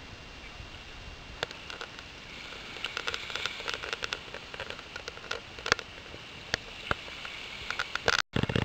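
Scattered light clicks and rattles of scuba gear being handled and adjusted, with a denser flurry a few seconds in, over a faint steady background hiss.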